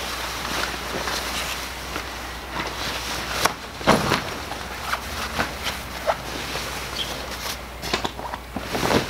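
Pop-up hub-style ice fishing shelter being pulled open: tent fabric rustling and flapping, with a string of sharp snaps as the panels pop out into place, the loudest about four seconds in.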